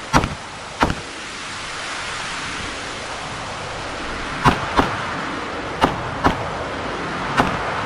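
Pistol shots fired during a practical-shooting stage: two near the start, then after a pause of a few seconds five more, some in quick pairs, over a steady rushing hiss.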